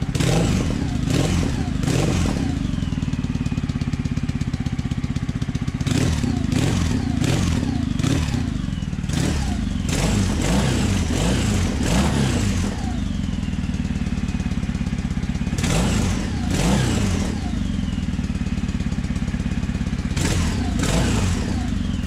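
Kawasaki W800's air-cooled parallel-twin engine idling through stainless headers and reverse-cone megaphone slip-on mufflers with the baffles fitted, blipped with the throttle again and again so the revs jump and fall back each time. A pleasant exhaust note.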